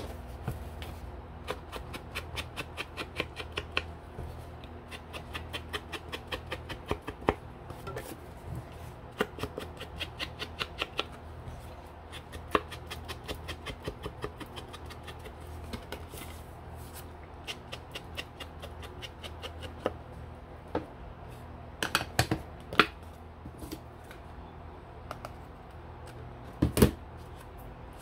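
Ink blending tool dabbed rapidly against an ink pad and the edges of a paper card: quick light taps, about five or six a second, in runs with short breaks, then a few louder separate knocks near the end.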